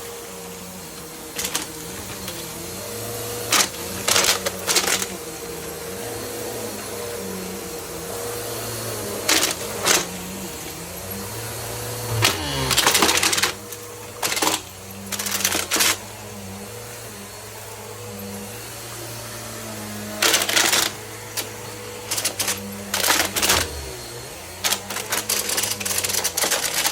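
Bissell vacuum cleaner running with a steady hum while it sucks up Lego bricks, which rattle and clatter through the nozzle in irregular bursts a few seconds apart.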